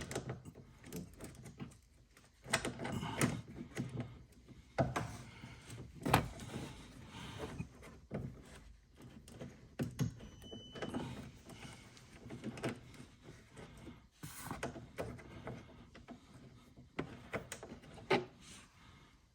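Irregular clicks, knocks and rubbing from a wrench and hands working a screw and a plastic rock guard loose at a car's wheel well.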